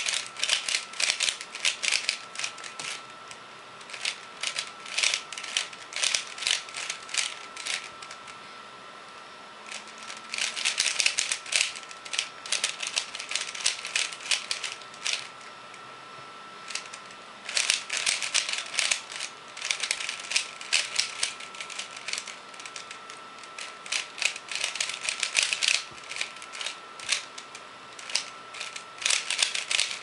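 Plastic 3x3 Rubik's cube layers being turned quickly by hand: rapid clacking in bursts of several seconds, with brief pauses between runs of moves.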